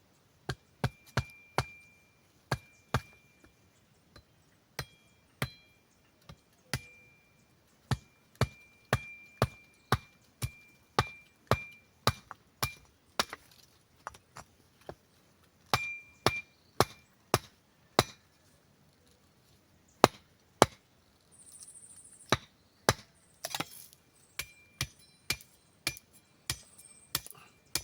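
Repeated sharp chops of a blade into a wooden stick to split it in half lengthwise, an irregular run of blows about one to two a second, many leaving a short high ring.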